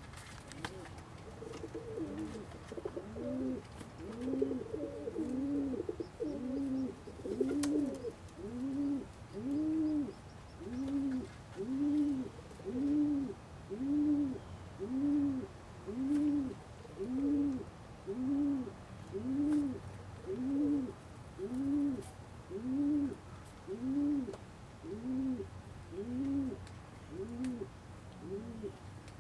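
Domestic pigeon cooing: a low coo that rises and falls, repeated steadily about once a second. In the first few seconds a second bird's coos overlap it.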